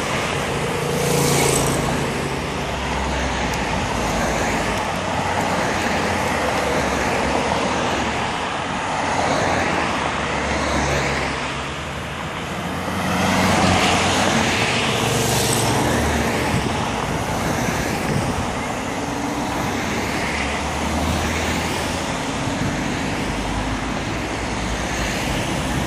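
A line of cycling-race team cars driving past one after another, engines running and tyres on the road, with louder passes about a second in and again about thirteen to sixteen seconds in.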